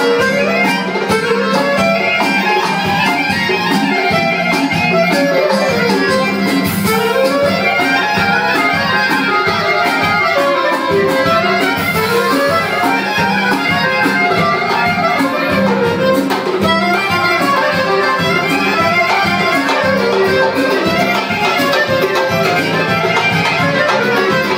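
Live folk dance music for a kolo, played by a wedding band with an accordion, keeping a steady beat.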